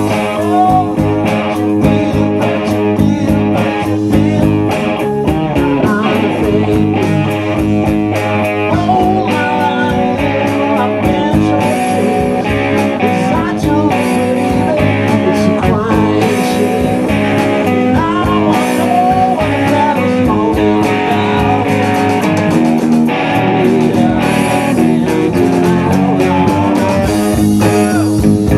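Live rock band playing: electric guitars, bass guitar and drums, loud and continuous.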